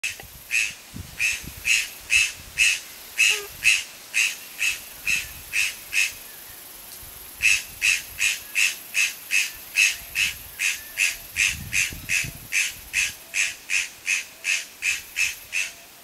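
A bird calling a long series of loud, short, harsh notes, about two a second, with a pause of a second or so near the middle before the series starts again.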